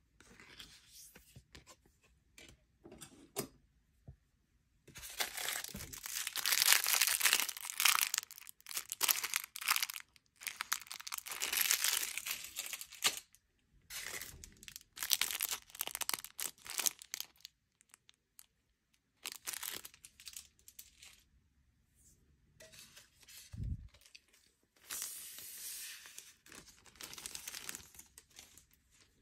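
Clear plastic wrapping bag crinkling and rustling in several long bursts as it is worked off a diecast model and handled, with one soft thump about two-thirds of the way through.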